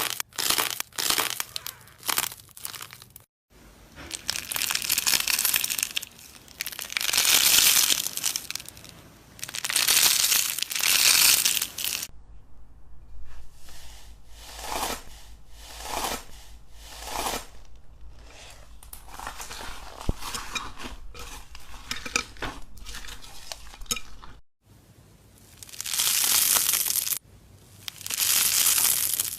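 Hands squeezing and kneading slime: a string of noisy bursts, each a second or two long, several of them breaking off suddenly.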